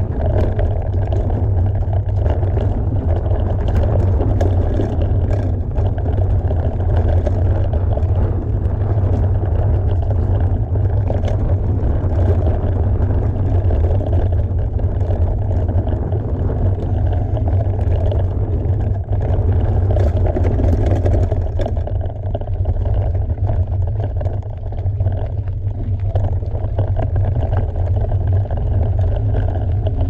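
Mountain bike riding a dirt trail: a steady wind rumble on the microphone and tyre noise, with scattered clicks and rattles from the bike over the ground.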